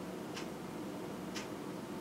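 Clock ticking twice, once a second, over a steady background hiss.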